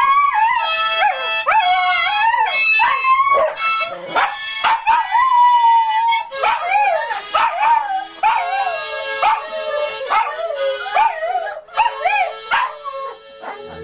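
A Shetland Sheepdog howls along to a harmonica. Its howls slide up and down in pitch, with one long held howl about five seconds in. The harmonica plays beneath, holding a steady note through the second half.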